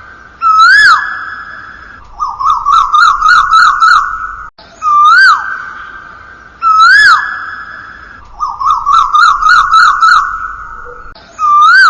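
Background music: a looping synthesized melody of whistle-like swooping notes alternating with quick wavering runs.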